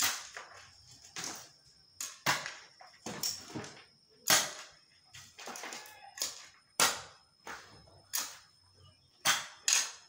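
Hoe blade striking a pile of soil and stones: about a dozen sharp chops at an uneven pace, one to two a second.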